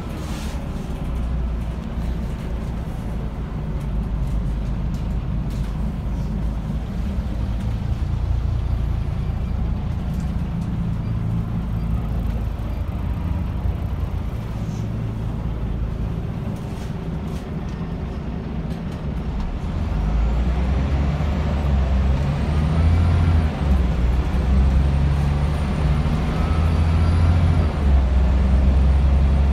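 Scania L94UB city bus heard from inside the passenger cabin: its five-cylinder diesel and ZF Ecomat automatic gearbox run steadily while the bus travels. From about two-thirds in the engine gets louder, with a faint rising whine, as the bus accelerates.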